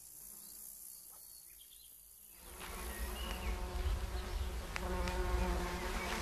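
Faint outdoor ambience. It is near quiet at first; about two and a half seconds in, a low rumble and a faint, steady hum of several tones come in.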